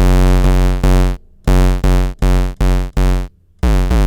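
Recorded modular-synth audio feedback: a loud, low buzzing tone, close to a square or sawtooth wave, played back in short stop-start pieces. Near the end it runs longer, its pitch wavering up and down rapidly.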